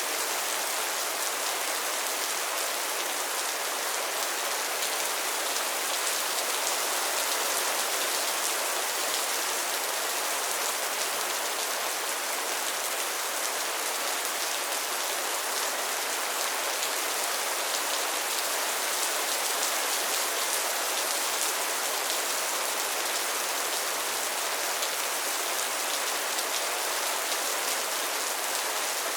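Steady rain falling on a pond and its lily pads: an even hiss of many small drops patting on water and leaves.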